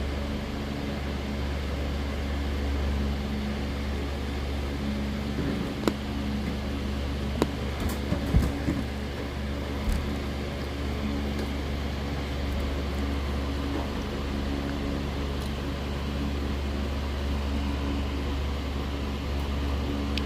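Steady low machine hum with a few steady tones in it, and a handful of short clicks and knocks about six to ten seconds in.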